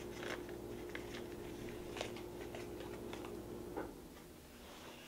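Quiet room tone: a steady low hum that cuts off about four seconds in, with a few faint clicks.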